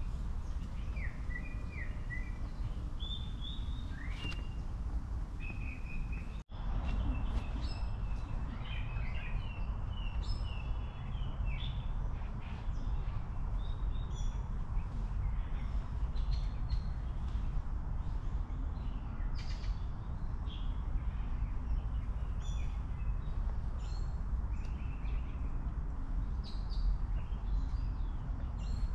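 Small birds chirping and calling again and again over a steady low rumble of outdoor background noise. The sound cuts out for an instant about six seconds in.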